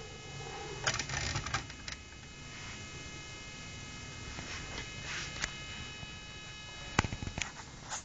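Handling noises from moving Lego toys and a phone camera: a patch of rustling about a second in and a few sharp clicks near the end, over a steady electrical hum.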